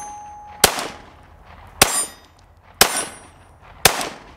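Four loud pistol shots about a second apart from a PSA 5.7 Rock firing 5.7x28mm rounds, each a sharp crack with a short ringing tail.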